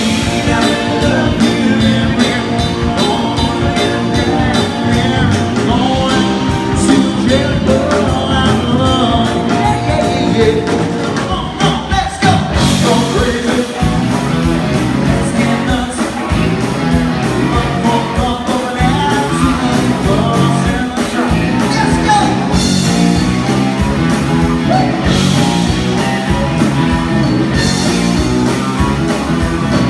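Live rock-and-roll band playing: male lead vocal over electric guitars, bass and a drum kit. About twelve seconds in the music changes abruptly to a different passage.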